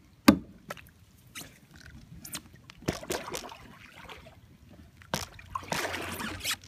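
Water splashing and trickling around a plastic kayak on floodwater, in two spells about three and six seconds in. A sharp knock comes near the start and is the loudest sound.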